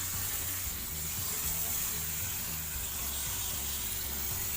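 Water spraying steadily from a hose onto a window air conditioner's coils during a water wash, an even hiss with a low steady hum underneath.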